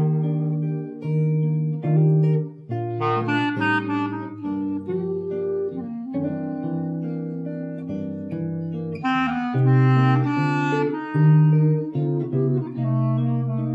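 Swing jazz played on clarinet and archtop jazz guitar: the clarinet carries the melody over the guitar's chords, with two quick flurries of notes, one a few seconds in and one near two-thirds through.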